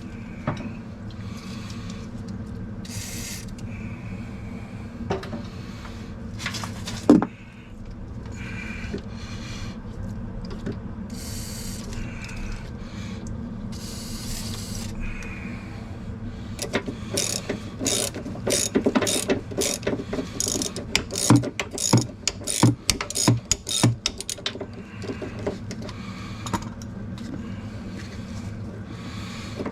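Hand ratchet wrench clicking as a brake-line fitting is worked loose, with a dense run of quick clicks in the second half, scattered tool clatter and one loud knock about seven seconds in, over a steady low hum.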